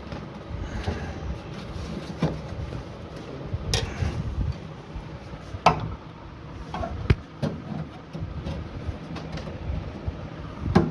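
Irregular metal strikes, about five sharp knocks a second or two apart, as a chisel or screwdriver is hammered against the rusted, swollen sheet-metal body of a window AC to push it back off the fan blade. A low steady hum runs underneath.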